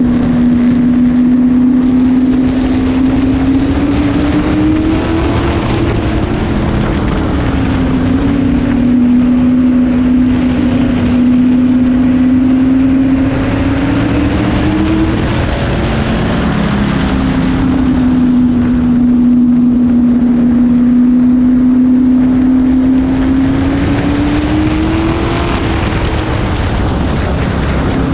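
Open-wheel race car's engine heard onboard at speed, holding a steady note, then rising and dipping about every ten seconds as the car goes around the oval. Wind rushes over the microphone throughout.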